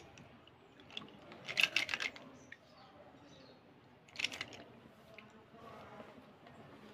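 A handful of slate pencils clattering and rubbing against each other in the hands: a burst of rapid clicks about a second and a half in, and a shorter burst at about four seconds.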